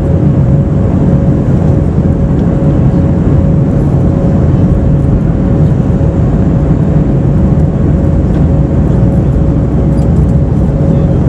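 Airbus A321 cabin noise while the airliner taxis: a steady low rumble from the engines and airframe, with a steady mid-pitched hum over it.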